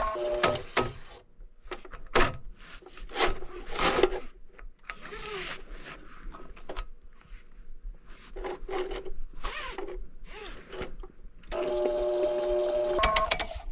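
An electric drain snake's motor cuts out just after the start. Scattered knocks, clicks and scrapes of the snake cable being worked in the drain pipe follow. Near the end the motor starts again, first softer, then at full speed.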